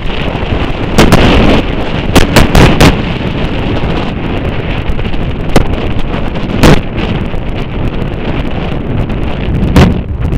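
Wind buffeting the microphone of a camera in a moving car: a loud, constant rush over the vehicle's road noise, broken by sharp gusty pops, a cluster of them in the first three seconds and more at about six and ten seconds in.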